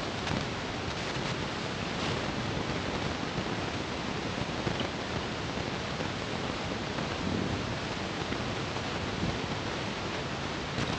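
A steady, even hiss of background noise with no distinct sounds standing out.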